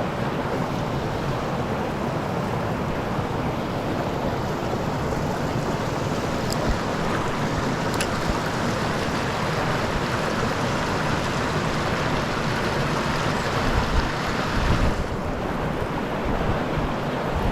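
Steady rush of flowing water in a mountain stream.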